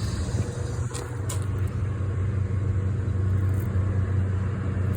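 Outdoor air-conditioning unit running with a steady low hum, getting slightly louder about two seconds in.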